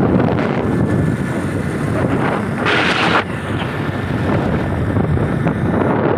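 Wind rushing over a phone microphone on a moving motorcycle, over the bike's engine and road noise, with a brief louder rush about three seconds in.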